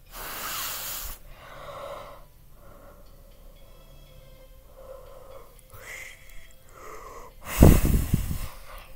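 A person breathing hard close to the microphone. A long loud exhale comes at the start, then several shorter breaths, and a loud puff of breath hits the microphone with a rumble near the end.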